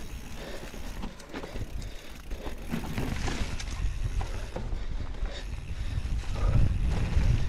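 Enduro mountain bike riding down a dirt trail covered in dry leaves: tyres rolling over dirt and leaves and the bike rattling over bumps, under a low wind rumble on the microphone that grows louder near the end.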